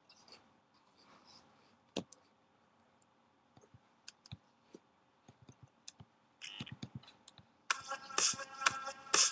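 Scattered light clicks and taps, with one sharper knock about two seconds in. Near the end, music with a steady beat starts up loudly.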